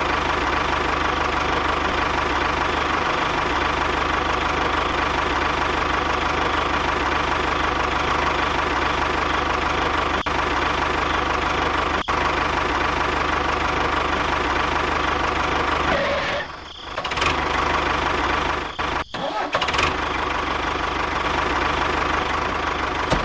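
A motor running steadily, with two short dips in level about 17 and 19 seconds in.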